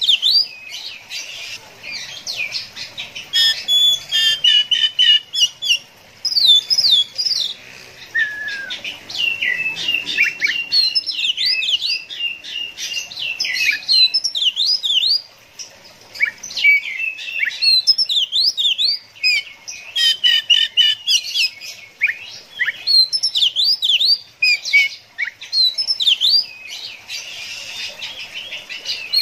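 Oriental magpie-robin singing a loud, rapid, varied song of short whistled sweeps, chirps and quick note runs, with a brief pause about halfway through.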